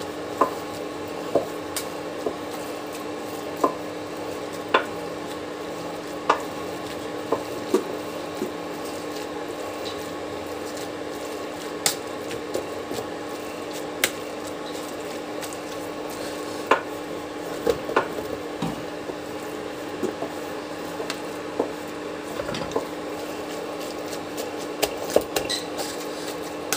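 Metal potato masher pressing and mashing boiled white peas and potatoes in a pan, with irregular clicks and knocks as the masher hits the pan. A steady hum runs underneath.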